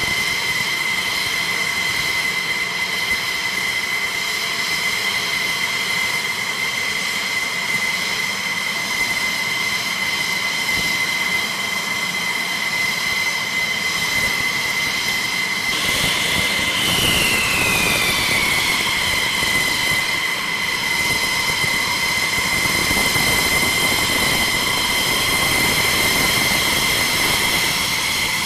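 F-16C Block 52 fighters' Pratt & Whitney F100 turbofan engines running at idle: a steady high whine over a constant rush of jet noise. A little past halfway, a second whine glides down in pitch as one engine's speed drops, and the rush grows somewhat louder.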